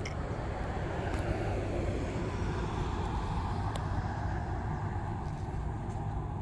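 Road traffic: a passing vehicle's tyre and engine noise swells between about one and three seconds in, over a steady low rumble.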